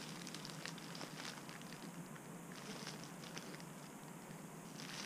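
Faint crinkling and scattered light ticks of plastic-bagged model kit parts being handled.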